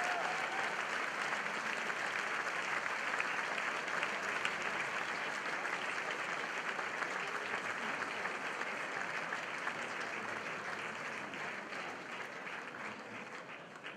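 Audience applauding, a dense steady clapping that slowly dies away near the end.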